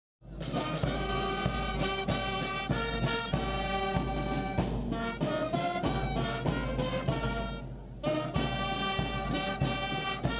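Music with brass and a steady beat, starting abruptly just after the start and easing off for a moment about two seconds before the end.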